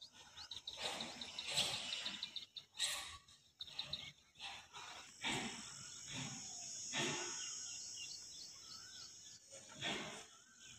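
Outdoor ambience: small birds chirping in quick runs of short, repeated calls, with a steady high-pitched hiss or buzz from about halfway in. Several dull bumps on the microphone are the loudest sounds.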